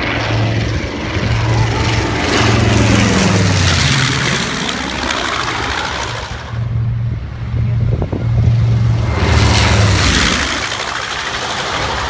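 Twin-engine piston warbird flying low passes: the engine and propeller drone swells as it approaches and drops in pitch as it goes by, twice, about three seconds in and again near ten seconds.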